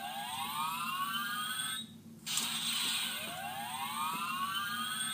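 Power Rangers Ninja Steel morpher toy playing an electronic sound effect through its small speaker: a rising whine over a hiss, twice, each about two seconds long with a short break between.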